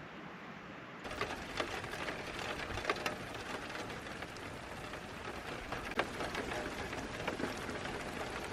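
Steady rainfall, with scattered sharper hits of single drops; it gets louder about a second in.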